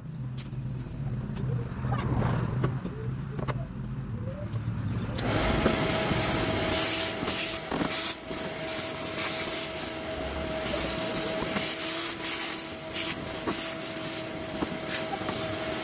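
Shop vacuum hose sucking dirt and grit off the top of a fuel tank around the fuel pump's lock ring, the nozzle scraping as it moves. About five seconds in, a steady rushing noise with a constant whine starts and runs on.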